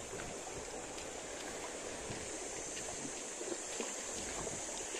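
Steady wash of small sea waves against shoreline rocks, with light wind.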